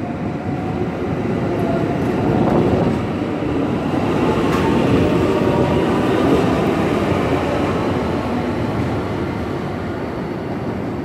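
Electric train pulling into a station platform to stop: a steady rumble of wheels and running gear, loudest a few seconds in as the cars run close past.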